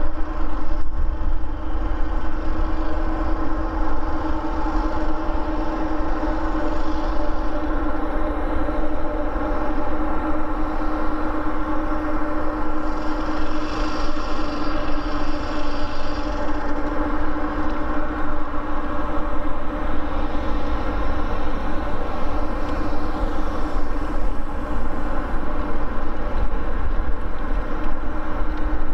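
Boeing 787-9 Dreamliner's Rolls-Royce Trent 1000 jet engines at takeoff power as the airliner rolls and climbs away: a loud, steady rumble with a held tone.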